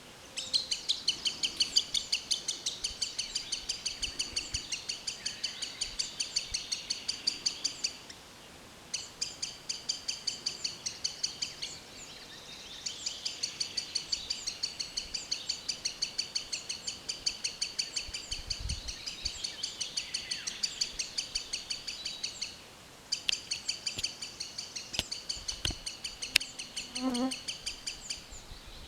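Green sandpiper calling: a fast series of sharp high notes, about five or six a second, in long bouts broken by brief pauses.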